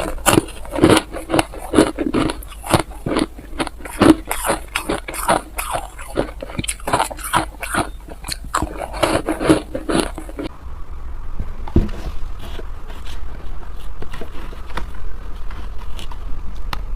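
Ice being bitten and chewed close to the microphone: a rapid, dense run of crisp cracks and crunches. About ten seconds in it changes abruptly to softer, sparser crunching.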